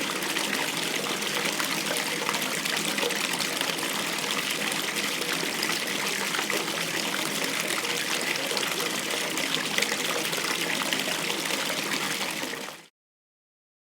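Tap running into a bathtub, a steady gush of water splashing into the filling tub; it cuts off suddenly near the end.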